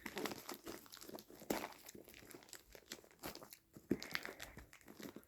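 Packaging being handled and pulled at: a run of irregular crinkling and rustling crackles, with a louder crackle about a second and a half in and another near four seconds.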